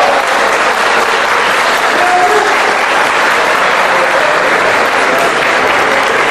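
Audience applauding steadily, with a few voices heard faintly under the clapping.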